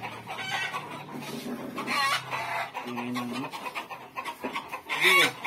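Chickens clucking in short, scattered calls, with a louder call near the end.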